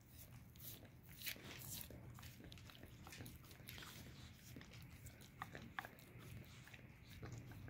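A dog licking and nibbling at a person's bare skin: faint wet smacking and clicking mouth sounds, a few of them sharper about a second in and again after five seconds.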